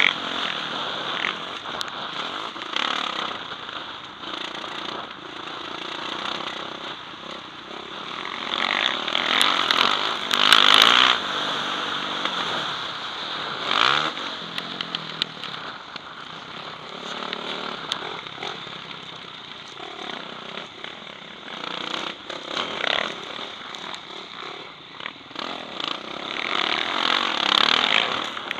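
Motocross bike engine revving hard and backing off again and again as the rider races the track, heard from the rider's helmet camera. The loudest bursts of throttle come about ten seconds in and near the end.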